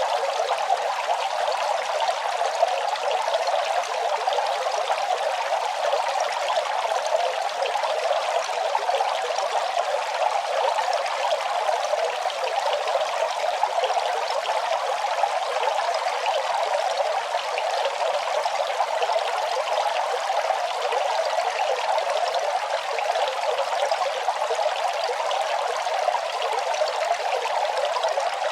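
Running water splashing and trickling in an even, steady flow.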